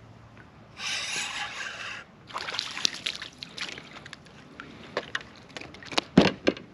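Water sloshing and splashing around a plastic kayak, with a steady hiss for about a second near the start. Then a run of small knocks and taps as the rod and line are handled, with two heavier knocks near the end.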